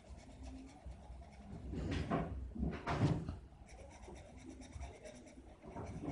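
Faber-Castell Connector felt-tip pen rubbing and scratching on paper while shading in short strokes. There are two louder, duller rubs or knocks about two and three seconds in.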